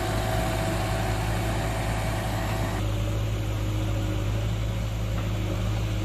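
Diesel engine of heavy road-construction machinery running steadily with a low drone; the sound changes slightly about three seconds in.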